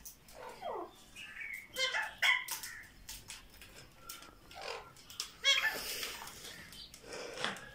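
Several short animal calls in a row, one of them falling in pitch about half a second in, with more calls around two seconds and five and a half seconds in.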